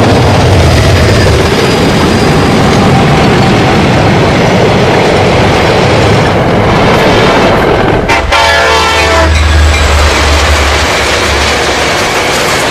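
A passenger train running along the track with a steady rumble and clatter of wheels on rails. About eight seconds in, a train horn sounds once for about a second.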